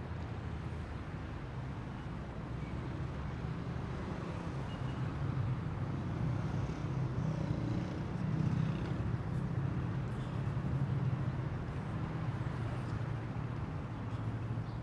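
Steady low rumble of a car heard from inside its cabin, swelling slightly in the middle.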